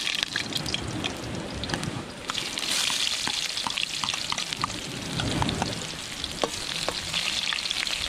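Garlic frying in hot oil in a pan: a steady sizzle with scattered sharp clicks as it is stirred. The sizzle drops away briefly about two seconds in, then comes back strongly.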